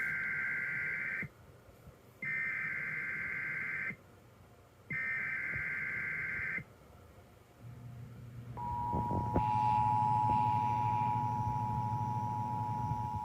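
NOAA Weather Radio test alert: three bursts of SAME digital header data, each a second or two long with about a second's gap between them. About eight and a half seconds in, a steady warning alarm tone starts and holds, with a low hum beneath it.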